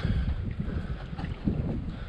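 Wind buffeting the microphone: an uneven low rumble that gusts up and down.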